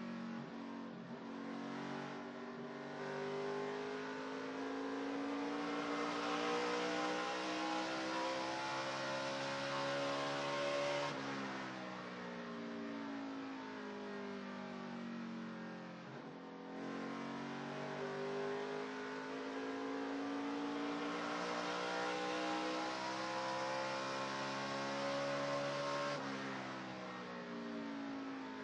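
NASCAR Truck Series race truck's V8 engine at racing speed, heard onboard. The pitch climbs steadily down the straight, drops sharply as the throttle is lifted about eleven seconds in, and sags through the turn. It climbs again from about seventeen seconds and drops sharply again a couple of seconds before the end.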